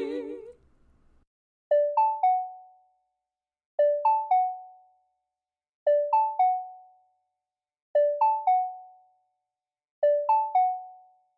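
A short electric-piano chime of three quick notes, low then high then middle, repeated five times about every two seconds, each group ringing out and fading. At the very start, the last sung soprano note of a hymn dies away.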